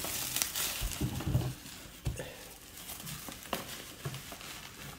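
Bubble wrap rustling and crinkling as it is handled and pulled open, with scattered light clicks.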